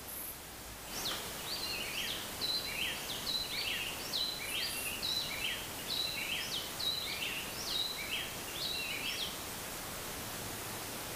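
A songbird singing a rapid run of short whistled notes, some sliding down and some held level, for about eight seconds before it stops, over a steady hiss of forest ambience.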